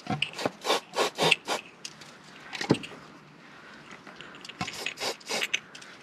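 Aerosol can of silicone spray hissing out in short spurts: a quick run of them in the first second and a half and another cluster near the end, with a single sharp knock a little before the middle.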